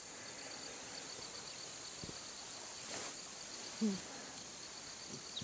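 Faint, steady high-pitched insect trill of rapid, even pulses, with a brief low hum of a voice about four seconds in.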